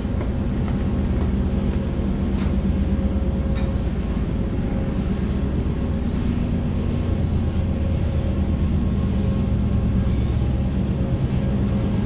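Sawmill machinery running: a loud, steady low drone with a constant hum.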